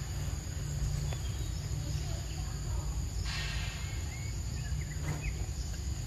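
Outdoor ambience of insects droning steadily at a high pitch over a low wind-like rumble, with a brief rustle about three seconds in and a few short chirps after it.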